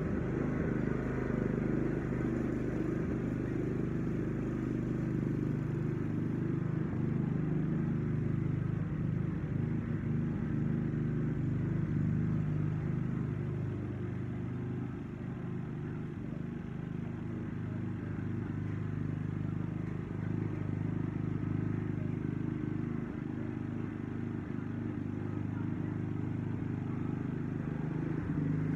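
Gas push lawn mower's small engine running steadily, dipping a little in loudness around the middle of the stretch and then coming back up.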